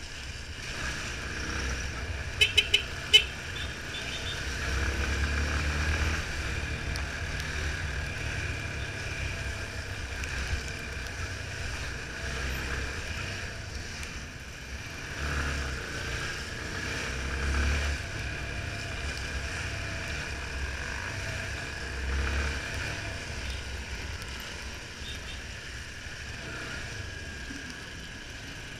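Yamaha Fazer 250's single-cylinder engine on a ride through slow wet-road traffic, swelling in low surges several times as it pulls away, under a steady hiss of wind and wet tarmac. Four short, sharp beeps in quick succession about two and a half seconds in are the loudest sounds.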